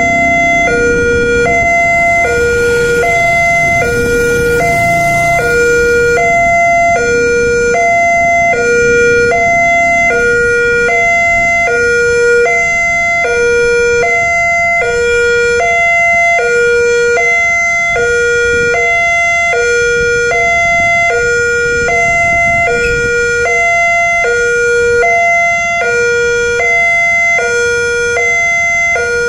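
Railway level crossing warning siren sounding a steady two-tone wail, alternating between a low and a higher tone, each held about half a second, over road traffic noise.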